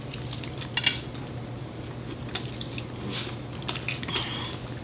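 Scattered light clicks and clatter of tableware and food containers while eating, with a brief squeak about four seconds in, over a steady low hum.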